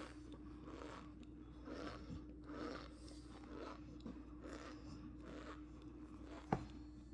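A spoon working through loose cornstarch powder in a plastic tub: soft crunching and scraping strokes, with a sharp tap near the end.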